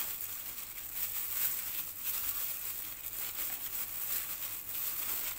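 Thin plastic food-handling gloves crinkling and rustling as the hands squeeze and shape mashed potato dough, in irregular soft strokes.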